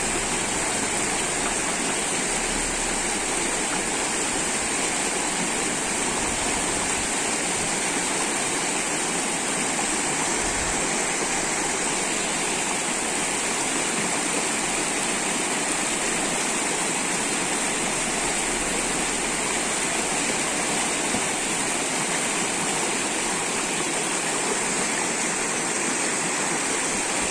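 Mountain stream rushing over stones, a steady, unbroken rush of water.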